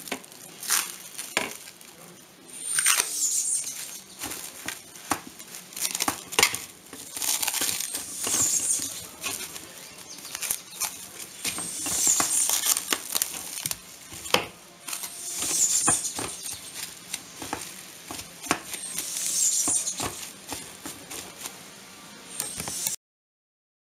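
Plastic cling film being pulled off its roll and stretched over a pot in repeated rasping pulls every few seconds, with crackles and small clicks in between. It cuts off suddenly near the end.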